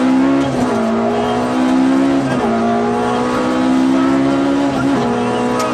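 Peugeot 106 kit car rally engine heard from inside the cabin, running hard at high revs. The revs drop sharply twice, about two and a half and five seconds in, then pick up again.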